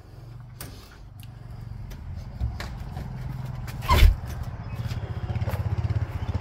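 Small engine idling steadily, its pulsing hum growing louder, with a single sharp thump about four seconds in.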